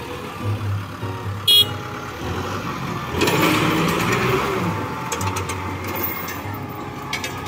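Diesel engine of a Kubota M6040 tractor running hard while bogged in mud. It grows louder and rougher for about two seconds near the middle, and there is a brief sharp click about a second and a half in.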